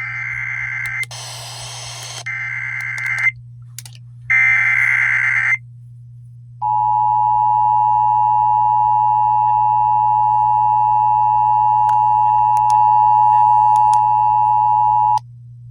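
Emergency Alert System tones on the radio. First come the harsh warbling data bursts of the digital alert header, for about the first five seconds. Then the steady two-tone attention signal sounds for about eight and a half seconds and cuts off suddenly near the end, marking the start of an emergency alert broadcast.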